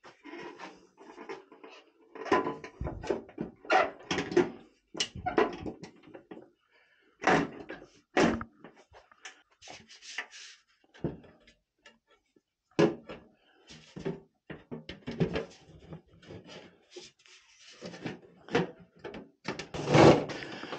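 Sheet-metal boiler jacket panel being handled and fitted back on top of an oil boiler: irregular knocks, clunks and scrapes of thin metal, with the loudest knock near the end.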